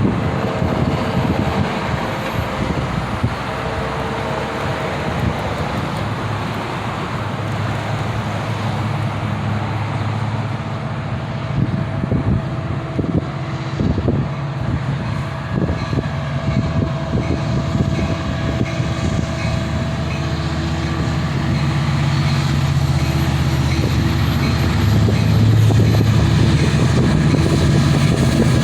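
Sounder commuter train with its diesel locomotive running past, a steady low engine drone with wheel noise on the rails, growing louder toward the end.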